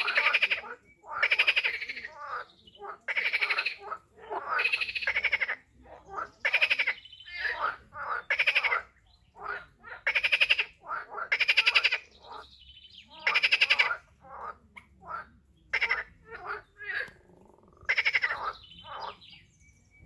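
Frogs calling at a pond: a steady run of short calls, each a quick rattle of pulses, coming about once a second, some loud and some fainter.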